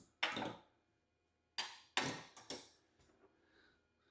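Small metal tools clinking and clattering as wrenches and a router bit are handled during a bit change on a CNC spindle. One short clatter comes right at the start, and three more follow close together between about a second and a half and three seconds in.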